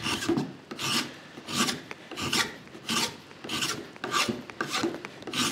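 Hand file stroking across the steel edge of a card scraper cut from an old handsaw blade, in repeated push strokes about one and a half a second, filing the rounded edge flat and square.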